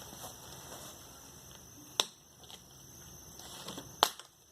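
Plastic screen bezel of a Dell Inspiron 15 3000 laptop being pried off by fingernails: faint rustling of the plastic with two sharp snaps, about two seconds in and about four seconds in, as it pops loose.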